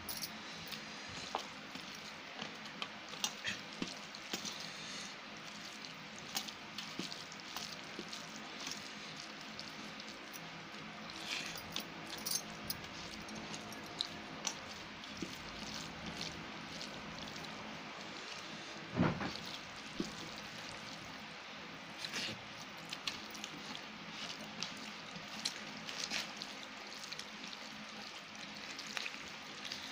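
Fingers mixing rice into chicken curry on a steel plate: wet squishing and smearing with many small clicks of the fingers against the metal, and one louder knock about two-thirds of the way through.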